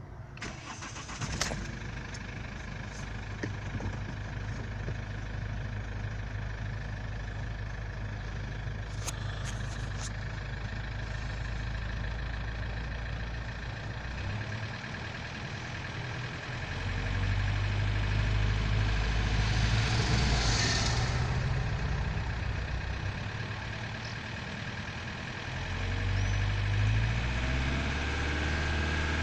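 Toyota Avensis T22 D-4D turbodiesel engine running, growing louder a little over halfway through and again near the end, with a rushing hiss that swells for a couple of seconds around two-thirds of the way in. The hiss is a leak at the turbocharger intake hose, faint at idle and stronger as the engine is pushed. A few sharp clicks sound early on.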